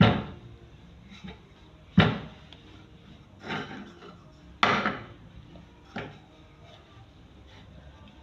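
Wooden rolling pin knocking on the table as thin dough is rolled out: about five sharp wooden knocks, one every second or two, with quiet in between.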